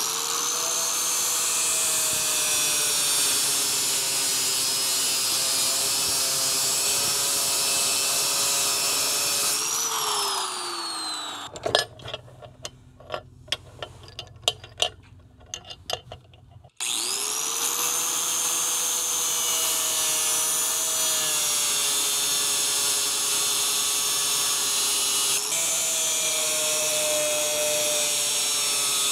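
Abrasive chop saw's cut-off wheel spinning up with a rising whine and running steadily as it cuts through a twist drill held in a metal vise, cutting off the worn, undersized end of the bit. About ten seconds in it winds down with a falling whine, followed by a few seconds of clicks and knocks as the bit is reset in the vise, then the saw spins up again and cuts.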